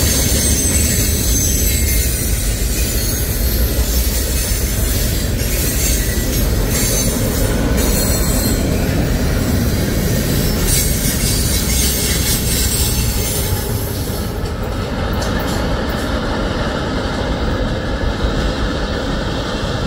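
Manifest freight train's cars rolling past close by: a steady rumble of steel wheels on rail with high-pitched wheel squeal. About 14 seconds in, the last car goes by, the squeal and hiss fall away, and a lower rumble fades as the train moves off.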